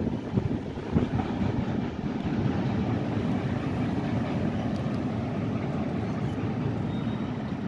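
Steady low rumble of a freight train rolling away after its last car has cleared the crossing.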